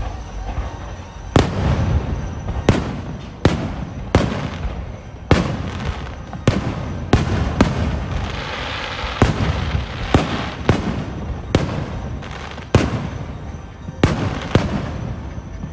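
Fireworks display: aerial shells bursting one after another, about a dozen and a half sharp bangs at irregular spacing of roughly half a second to a second, with a stretch of crackling about halfway through.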